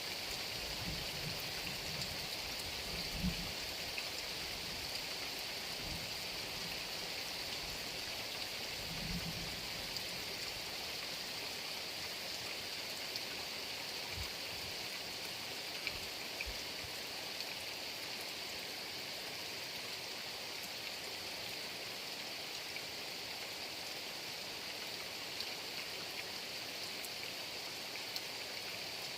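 Heavy rain falling steadily, an even hiss, with a few low dull thuds in the first ten seconds.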